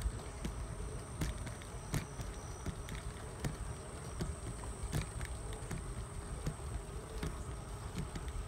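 Bicycle rolling along a concrete path: a low rumble of tyres and wind on the microphone, with irregular clicks and rattles from the bike and a steady high whine.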